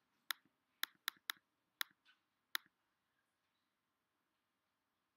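Computer mouse clicking: six sharp single clicks within about two and a half seconds, unevenly spaced, three of them in quick succession about a second in.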